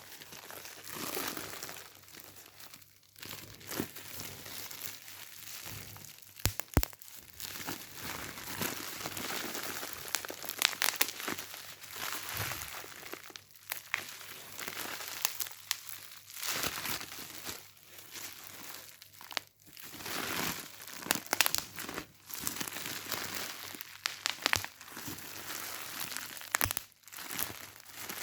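Continuous crinkling and crackling, as of a crumpled wrapper or bag, in irregular bouts with many sharp crackles and brief pauses between them.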